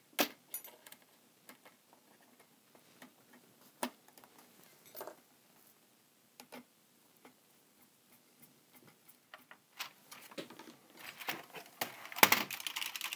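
A screwdriver driving small screws into the Atari 1040STF keyboard's circuit board and plastic frame, heard as scattered quiet clicks and ticks. Near the end the plastic keyboard is handled and turned over, giving a louder clatter.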